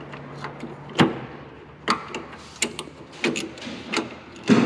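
Steel parts and hand tools clinking and knocking as they are fitted at a dozer blade's hydraulic cylinder mount: about five sharp metallic knocks, irregularly spaced, with a louder clatter starting right at the end.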